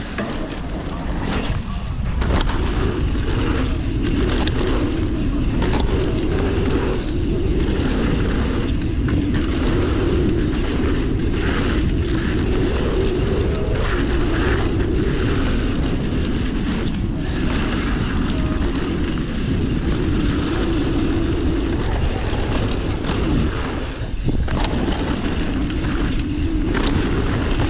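Wind rushing over the microphone as a Pivot Switchblade 29er mountain bike rides fast down a dirt trail, with steady tyre noise and frequent short knocks and rattles from the bike going over bumps.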